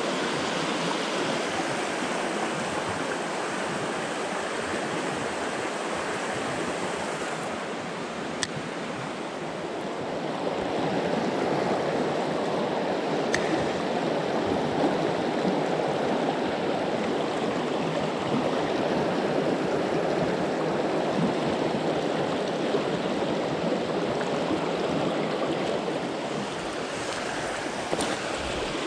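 Mountain trout stream rushing over rocks and shallow riffles, a steady rush of water that grows a little louder about ten seconds in. A few faint clicks are heard over it.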